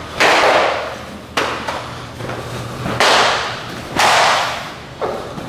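Jiu-jitsu belts lashed across a person's back and gi: about five sharp cracks roughly a second apart, three of them loud, each with a short echo.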